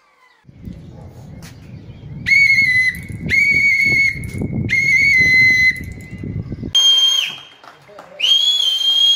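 A whistle sounding a series of long, high notes, each held about a second; the last two are pitched higher, and the final one drops away at its end. A low rumbling noise runs under the first notes and cuts off suddenly about two-thirds of the way through.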